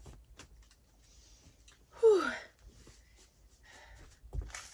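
A woman's short vocal sound about two seconds in, a sigh-like 'ooh' that falls in pitch, over faint rustling of a flannel shirt being pulled on and small clicks. A soft thump near the end.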